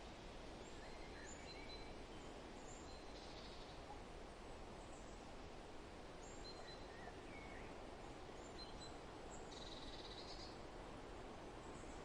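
Forest ambience: a steady, faint rustle of wind in the trees with scattered distant bird chirps and short whistled notes. There is a brief trill a few seconds in and a louder one near the end.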